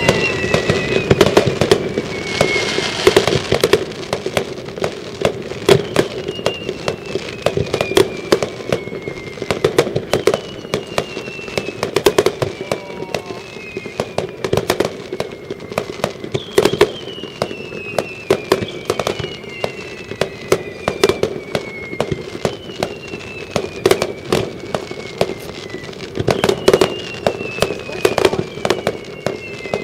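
Aerial fireworks going off in a rapid, continuous barrage of sharp bangs and crackles, with repeated whistles that fall in pitch over about two seconds each.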